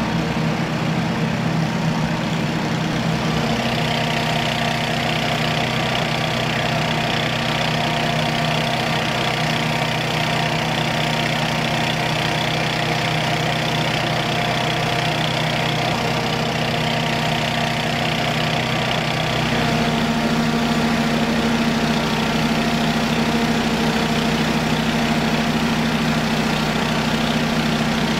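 A large engine idling steadily. About two-thirds of the way through its tone changes, turning deeper and slightly louder.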